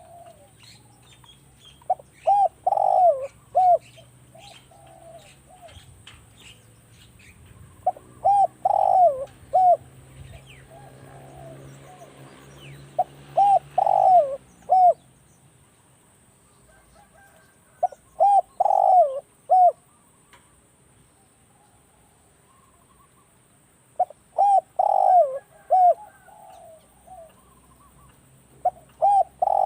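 Spotted dove cooing: a short phrase of three or four notes about every five to six seconds. Faint chirps of small birds are heard between phrases, and a faint low drone around the middle.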